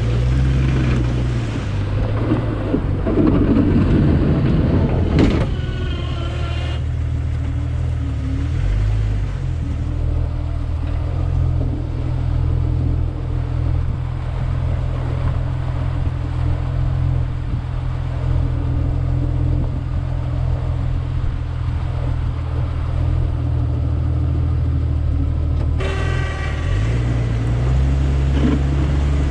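Jeep Wrangler TJ engine running under load as the Jeep pushes its snow plow through ice and snow, with a rougher scraping noise in the first few seconds. The engine note drops once about eight seconds in and climbs again near the end as the driver changes speed.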